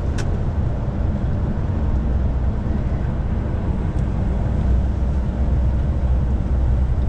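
Truck engine and road noise heard from inside the cab while driving: a steady low rumble. A short sharp click comes just after the start.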